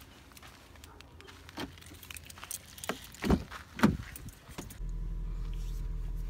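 A car door being opened: scattered clicks and knocks of the handle and door, with two sharp knocks a little over three seconds in. Near the end the sound cuts to a steady low hum heard inside the car.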